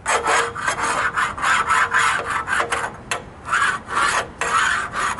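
Repeated rough scraping strokes, about two to three a second, starting abruptly.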